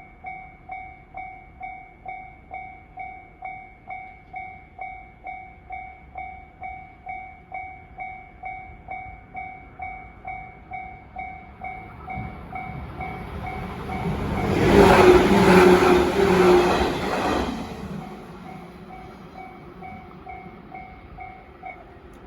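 Japanese level-crossing warning bell ringing in a steady, even strike about twice a second while a train passes over the crossing; the passing train swells up about two-thirds of the way through, is loudest for a couple of seconds, then fades. The bell stops just before the end as the crossing clears.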